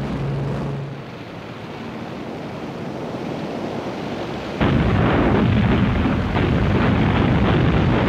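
A steady rumble like aircraft engines in flight, then a little over halfway through a sudden loud, rapid rattle of machine-gun fire.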